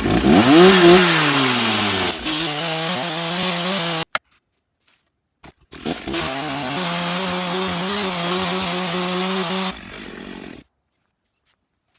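Stihl chainsaw at full throttle, its engine pitch rising and then sagging under load as the bar cuts into a huge Douglas fir log. The sound cuts off abruptly about four seconds in, comes back about two seconds later at a steady pitch, drops to a lower level a couple of seconds before the end and stops.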